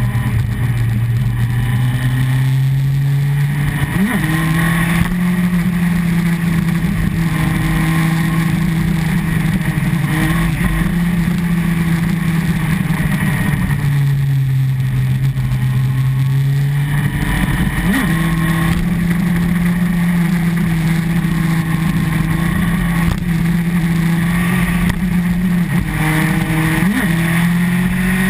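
Honda CBR954RR Fireblade's inline-four engine running at road speed with wind rushing over the mounted camera. The engine note steps up sharply about four seconds in, again about seventeen seconds in and near the end, sagging slowly in between.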